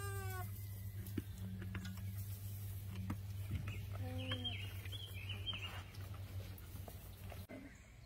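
Two short pitched animal calls about four seconds apart, the second lower, with a run of high chirps just after the second, over a steady low hum.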